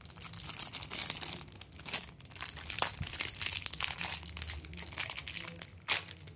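Close-up plastic handling of a mechanical keyboard: keycaps and hot-swappable switches being worked loose and pulled out, a continuous run of scraping, rustling and small clicks, with a sharper click about three seconds in and another near the end.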